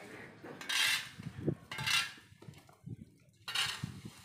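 Broom strokes through dry leaves on concrete: three short, scratchy swishes, about a second in, about two seconds in and near the end.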